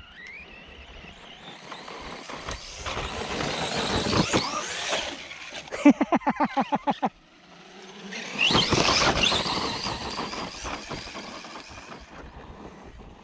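Electric RC truck's brushless motor whining with tyre noise as it accelerates, rising to a peak and then easing. Just past the middle comes about a second of rapid pulsing, about seven a second, that cuts off suddenly. A second loud burst of motor whine follows and fades.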